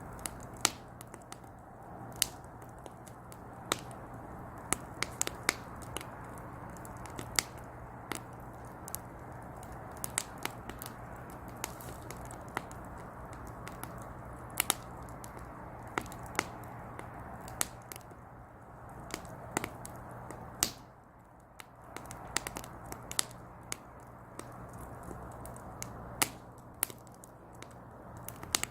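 Firewood crackling as it burns in a small brazier, with irregular sharp pops and snaps over a steady soft hiss. The fire quiets briefly about three quarters of the way through.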